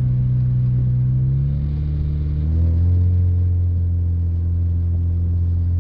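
Mk4 VW Golf's engine and exhaust droning steadily, heard from inside the cabin while driving. About two seconds in, the pitch steps down and holds at a lower drone.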